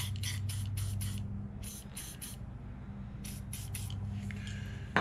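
Aerosol can of Blaster penetrating spray hissing in short squirts onto a carburetor's stiff choke shaft to free it up: about ten quick bursts in three groups, over a steady low hum. A sharp click at the very end.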